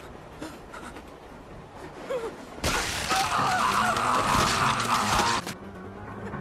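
A sudden loud crashing noise starts about two and a half seconds in, lasts about three seconds and cuts off abruptly, over a faint low background.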